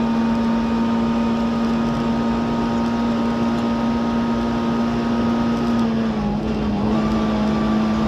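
Skoda Favorit Group A rally car's four-cylinder engine held at steady high revs, heard from inside the cabin over road and tyre noise. About six seconds in the engine note drops slightly as the car lifts off.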